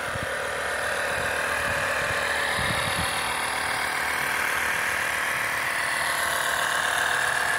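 A machine running steadily under an even hiss, with no change in pitch or level.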